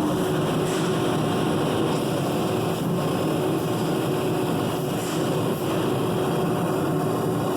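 Bystronic 3015 2000 W laser cutting machine running: a steady mechanical drone with a few constant tones in it.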